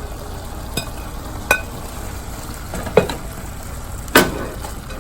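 A stir-fry of shrimp, vegetables and miracle rice simmering with a steady sizzle in the pan while a utensil stirs, knocking and clinking against the pan four or five times, the loudest knock about four seconds in.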